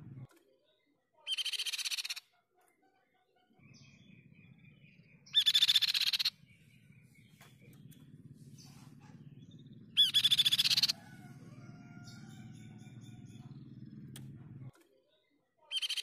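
Crescent-chested babbler (tepus pipi-perak) giving four short, harsh chattering bursts, each about a second long, at intervals of roughly four to five seconds. Fainter bird calls and a low hum fill the gaps between the bursts.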